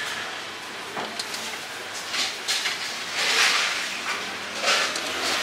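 Eggs being set by hand into plastic egg trays: light knocks and clatter of shell against plastic, now and then, over a steady background hiss.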